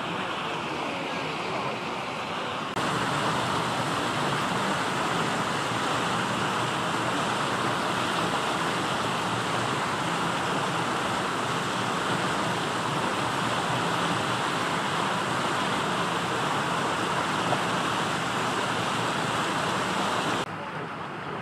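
Steady outdoor rushing noise with no distinct events. It gets louder about three seconds in and drops back near the end.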